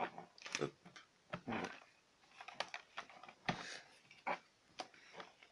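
Irregular light clicks and knocks of hands handling a Toshiba T1800 laptop's plastic case, with a few short scrapes.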